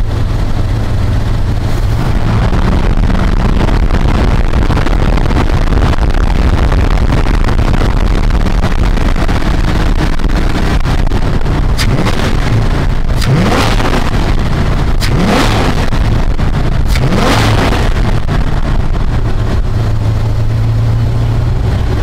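Dodge Ram W150 pickup's engine running at idle, then revved with three quick throttle snaps about two seconds apart a little past the middle, each rising and dropping back to idle.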